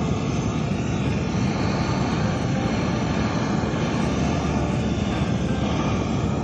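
Handheld soldering torch burning with a steady roar, heating a pipe fitting so that solder can be sweated into the joint.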